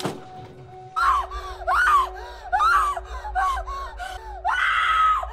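A woman screaming and crying hysterically in a run of short, high-pitched wailing cries, about two a second, ending in one longer scream. A low steady drone sits underneath.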